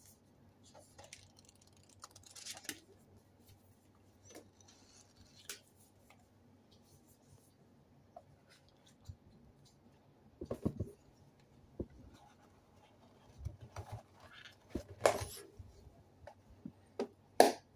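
Cardboard card boxes and a wrapped tarot deck handled on a desk: scattered rustles, scrapes and light taps, with a few louder knocks in the second half as boxes are set down and a lid is lifted. A faint steady hum runs underneath.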